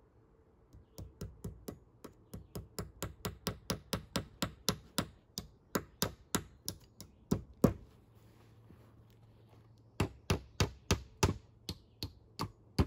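Hammer driving nails: a run of quick strikes, about three or four a second, that grow louder, then after a short pause a second, shorter run of strikes.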